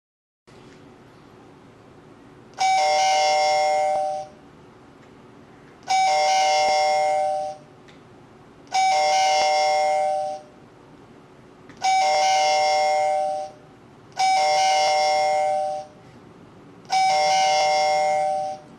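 AAS security alarm system sounding its door-chime tone six times, each ringing chime lasting about a second and a half and coming about every three seconds, with a low steady hum in between. The chime signals that a sensor in the door-chime zone has been triggered while the system is disarmed.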